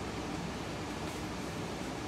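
Steady background hiss, with faint rustling of paper as a kitten tugs it through a hole in a cardboard box.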